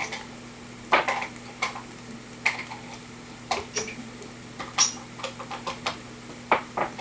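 Batteries being fitted by hand into a battery-powered device: irregular clicks, small knocks and rattles of plastic and metal, over a faint steady electrical hum.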